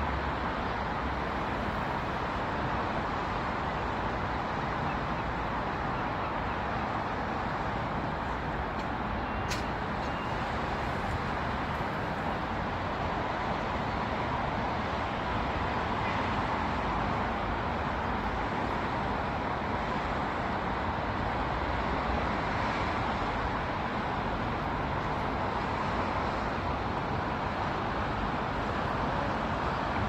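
Steady hum of distant road traffic, with one brief click about a third of the way through.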